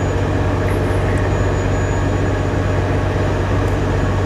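Steady mechanical drone with a strong low hum, unchanging throughout.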